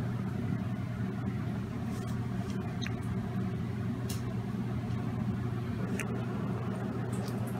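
A steady low hum like a running engine or motor, with a few faint small clicks over it.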